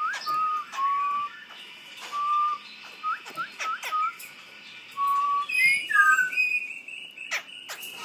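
Caged songbird giving a run of short, clear whistled notes, some rising and some falling, mixed with quick sharp chirps; a brighter burst of higher notes comes about five and a half seconds in.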